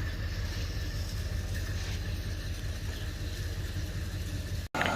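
Farm loader tractor's engine running steadily with a low drone, cutting off abruptly near the end.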